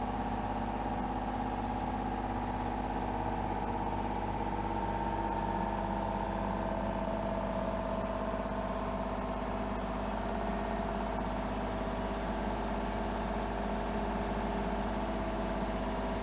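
Kubota mini excavator's diesel engine running steadily at a constant speed as the machine is worked slowly.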